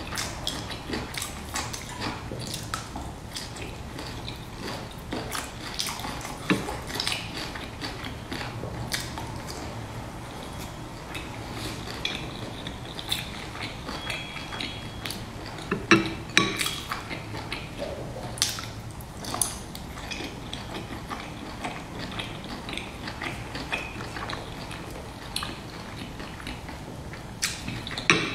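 Close-up chewing and wet mouth clicks of someone eating pan-fried dumplings dipped in chili sauce, in irregular clusters of short sounds.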